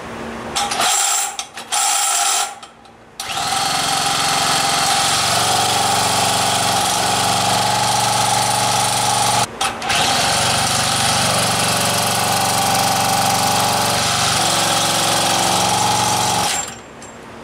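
Cordless drill spinning over a Motobecane moped's two-stroke engine to start it: three short blips, then a long steady whirring run broken once by a brief pause. The engine does not catch; it has no spark.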